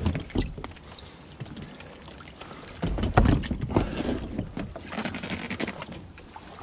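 Soft plastic Softplast 3D goose decoys and gear being handled in an inflatable boat: irregular knocks, scrapes and rustling, louder and busier from about three seconds in.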